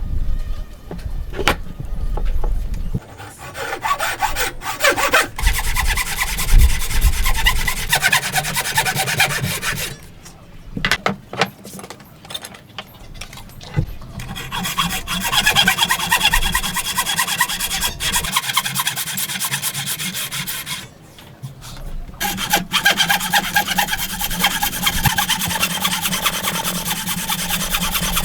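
Hand saw cutting wood in quick, even back-and-forth strokes, in three long bouts separated by short pauses, with a few sharp knocks near the start and in the first pause.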